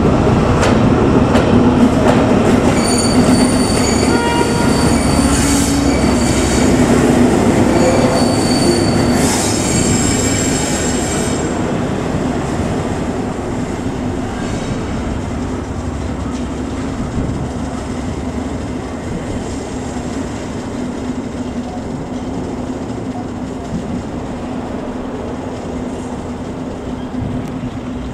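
Class 70 diesel locomotive with a V16 engine, running with a steady low engine note. High-pitched wheel squeal is heard for roughly the first ten seconds. The sound then grows gradually quieter.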